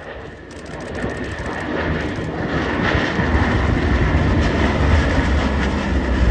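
Propeller aircraft's piston engines droning, growing steadily louder as it approaches.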